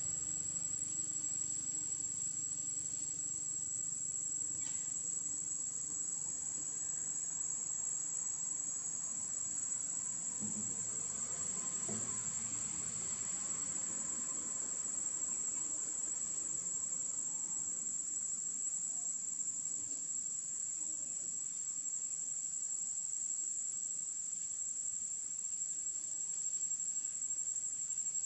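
Steady, high-pitched drone of insects, one unbroken tone that neither rises nor falls.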